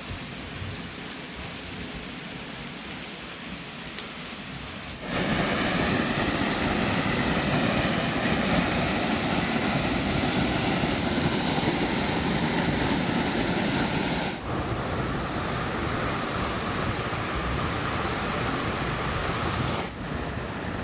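A tall waterfall, a steady noise of falling and splashing water. It jumps suddenly louder about five seconds in, and its sound changes abruptly twice more, near fourteen and twenty seconds.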